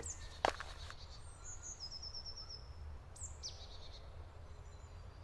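Forest birdsong over a low steady rumble: a quick run of short high notes, then a falling high call and a few more calls. A single sharp knock sounds about half a second in.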